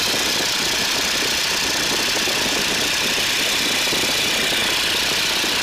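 Boeing Stearman biplane's radial engine running steadily at full throttle during the takeoff roll.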